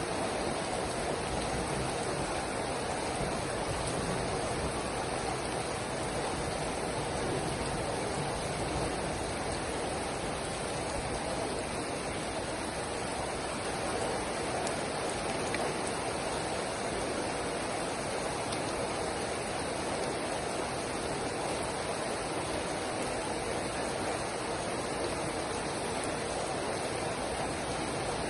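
Steady rain falling: an even, unbroken hiss with no single drops or other events standing out.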